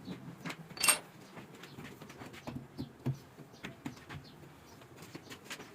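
Scattered light clicks and knocks of metal parts and tools being handled, with one sharper clink about a second in.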